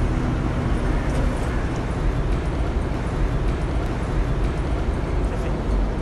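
Steady low rumble of city street traffic, heavy in the low end.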